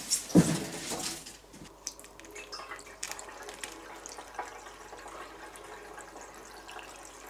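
Petrol being poured from a plastic bottle into the fuel tank of a motorized snow tow, a steady trickle of liquid running into the tank. A short knock comes about half a second in.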